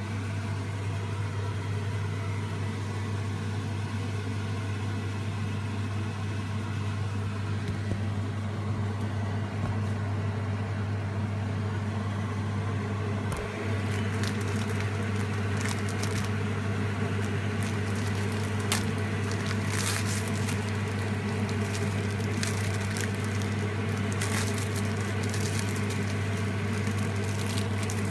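Microwave oven running with a steady low hum. From about halfway through, scattered crackles and clicks come on top of the hum.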